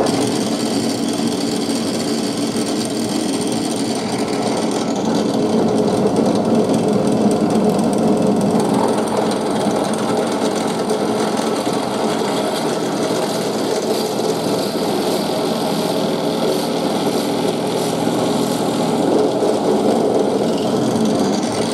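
Bench drill press switched on at the very start and running steadily while an 8 mm twist bit bores out 6 mm holes in small wooden pieces to 8 mm.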